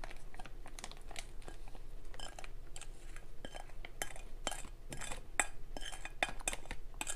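Irregular light clicks and clinks of kitchen utensils and a plastic freezer bag being handled while the juices of apple pie filling are poured into the bag.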